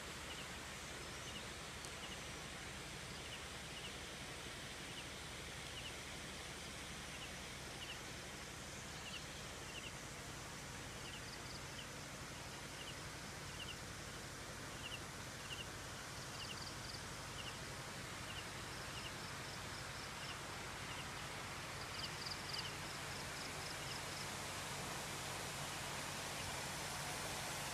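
A steady hiss of outdoor ambience with small animal chirps: short paired chirps repeating about once a second, and a few bursts of higher trills from about eleven seconds in. The hiss grows slightly louder near the end.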